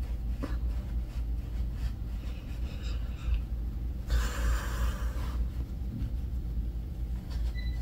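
A single long sniff of about a second, roughly halfway through, over a steady low hum.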